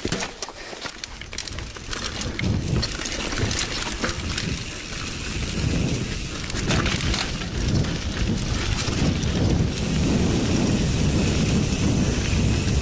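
Mountain bike descending a dirt forest trail at speed: knobby tyres rumbling over the ground and wind rushing on the microphone. Rattles and knocks from the bike over bumps come in the first few seconds, and the wind rush gets louder and steadier near the end.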